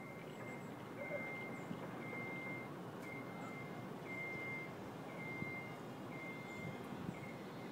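A vehicle's reversing alarm beeping steadily, about one beep a second, each beep a single high tone. Underneath it runs a low steady rumble of background noise.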